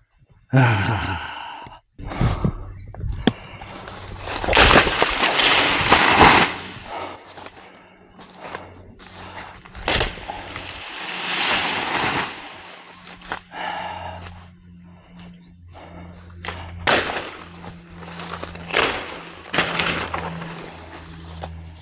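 Plantain plants being hacked down: a series of chopping blows with the crash and rustle of stalks and broad leaves falling, the loudest and longest around four to six seconds in.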